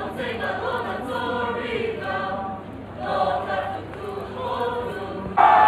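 A group of voices singing a folk chant together, in phrases with short breaks. Near the end comes a sudden, much louder burst of shouting voices.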